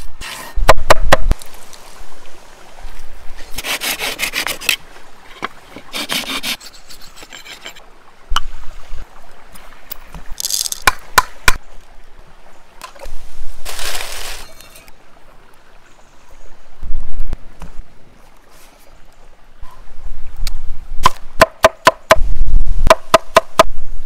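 Food being prepared on a wooden cutting board: a knife cuts through red bell peppers with a run of quick clicks on the board, with scraping and rustling handling sounds in between as seasoning is poured onto minced meat. Near the end a cleaver chops onions and parsley on the board in rapid strokes.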